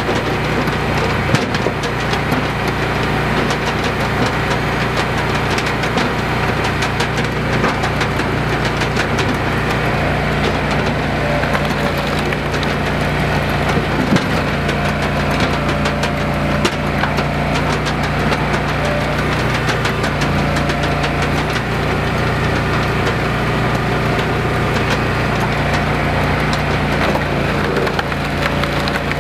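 Small gas engine of a Wolfe Ridge compact commercial hydraulic log splitter running steadily under load while logs are split, with a few sharp cracks of wood giving way.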